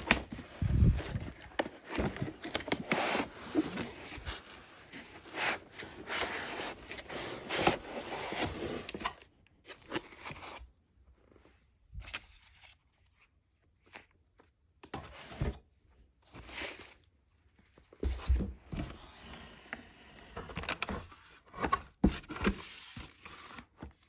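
Unboxing noises: packaging rustled, scraped and torn in close handling for the first nine seconds or so, then scattered short taps, clicks and rustles with quiet gaps between them.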